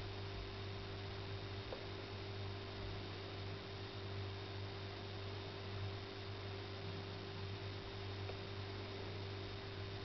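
Steady low hum with an even faint hiss and no distinct events.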